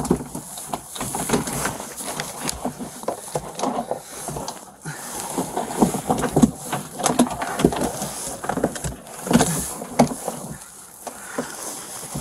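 Close rustling and handling noise: cloth and blankets rubbing and shifting against a body-worn camera's microphone, with irregular small knocks and scrapes throughout.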